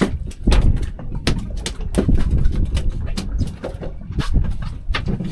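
Irregular sharp clicks and knocks, the kind made by fishing tackle and gear being handled on deck, over a steady low rumble.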